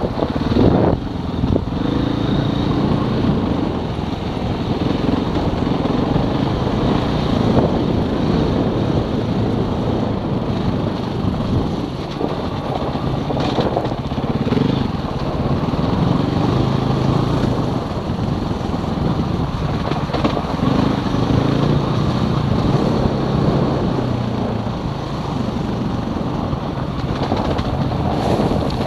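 Motorcycle engine running on a rough dirt track, its pitch rising and falling with the throttle, over a steady rush of wind and road noise.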